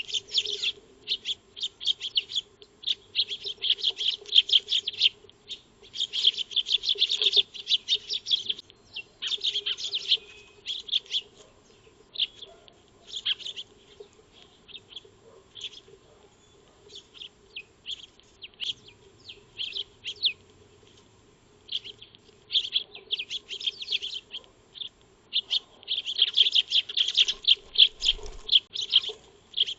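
Eurasian tree sparrows chirping in rapid, overlapping bursts, thinning to scattered chirps midway and building again near the end.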